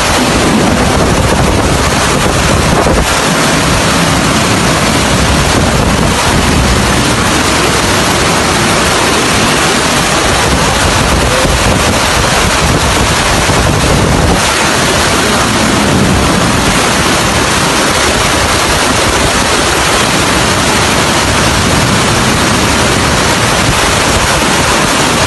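Muddy flash-flood torrent rushing through a street: a loud, steady rush of water.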